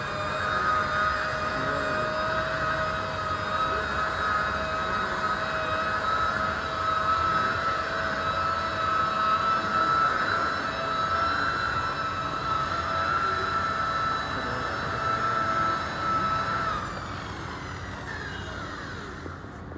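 Handheld electric rotary polisher running steadily with a high whine as its pad buffs a plastic headlight lens during headlight restoration. About 17 seconds in, the motor is switched off and the whine falls away as the pad spins down.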